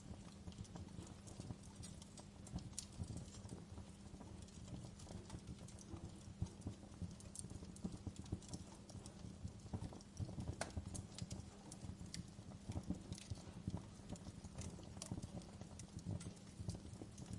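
Wood fire crackling in a stone fireplace: irregular sharp pops and snaps over a low steady rumble of the flames.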